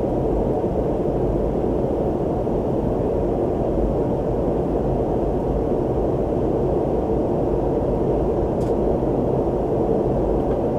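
Steady cabin noise of an airliner in flight: a low, even drone of engines and rushing air.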